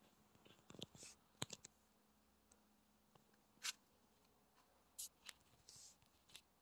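Near silence, broken by a few faint, short clicks and scuffs, the sharpest about a second and a half in and again near the middle.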